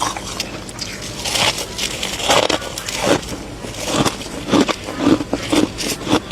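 A person biting and chewing powdery freezer frost, giving a run of irregular crunches that come faster in the second half.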